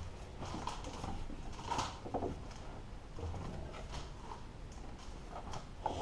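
Scattered clicks, knocks and rubbing from hands working a filter cover onto its housing in a skid steer's engine bay. The new filter is too stiff to seat, so the cover won't go on.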